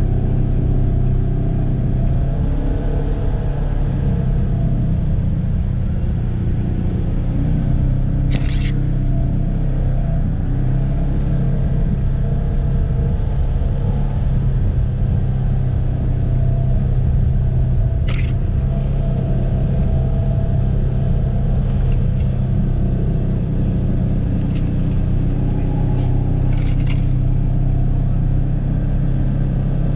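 Polaris Ranger 1000 side-by-side's twin-cylinder engine running at a steady pitch as it drives off-road. Short high hissing scrapes come about a third of the way in, near the middle, and a few more near the end.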